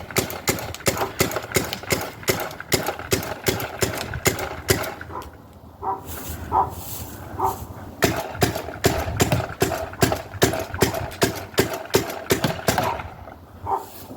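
Paintball gun firing rapid shots, about four a second, in long strings broken by a short pause about five seconds in.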